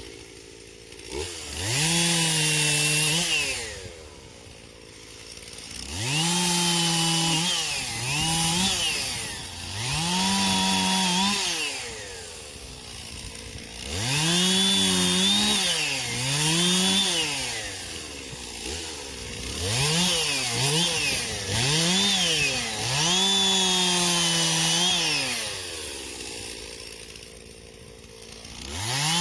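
Two-stroke chainsaw revved to full throttle again and again in bursts of one to three seconds, dropping back to idle between them, as it cuts through wood.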